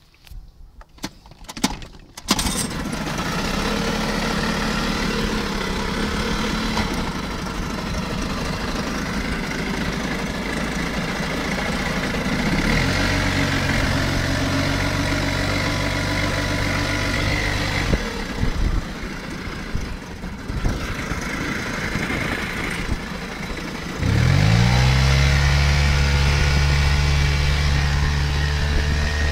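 Yamaha 5 hp outboard motor starting about two seconds in and running, with a faint high squeak over the engine note; near the end the engine speeds up and gets louder, then holds steady. The squeak is the noise the owner wants to trace, which appears at idle once the motor is warm after running at full throttle, but not in neutral.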